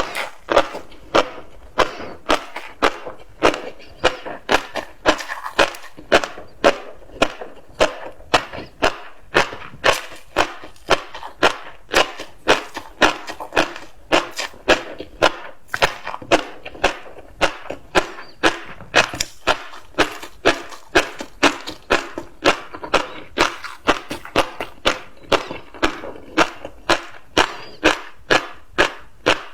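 Close-miked chewing of tobiko (flying fish roe), the tiny eggs crunching and popping in a steady rhythm of about two sharp crunches a second.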